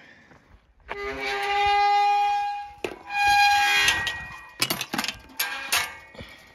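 Steel pipe ranch gate squealing on its hinges as it swings: two long, steady squeals, then several sharp metallic clicks and knocks.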